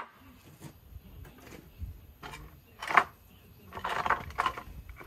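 Wooden boards knocking and scraping on asphalt as they are stacked under a motorcycle's side stand: a few light clicks, one sharp knock about three seconds in, then a short run of knocks and scrapes a second later.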